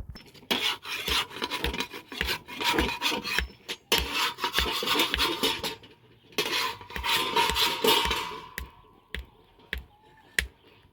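Rhythmic rasping and scraping in spells of two to three seconds, with short breaks between them and a faint knock about twice a second underneath.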